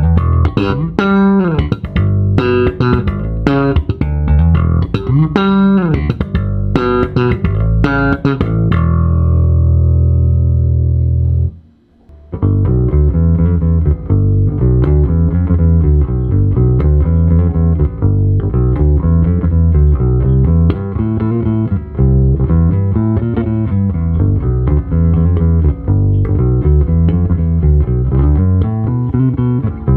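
OOPEGG Stormbreaker prototype electric bass guitar played solo. Plucked notes with sliding pitch come first, then a long held low note that is cut off about twelve seconds in, followed by a steady, repeating bass line.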